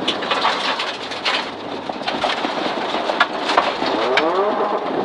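2004 Mitsubishi Lancer rally car driven hard on a gravel stage, heard from inside the cabin: a steady rush of tyre and road noise with gravel rattling and clicking against the underbody. Near the end, the engine's revs rise and fall as the car comes back on the power.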